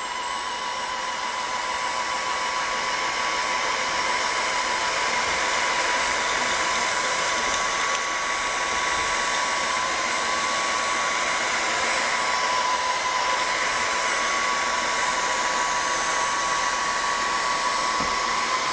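Redroad W13 cordless wet-dry vacuum running steadily on a hard floor: an even rush of suction air with a steady high motor whine.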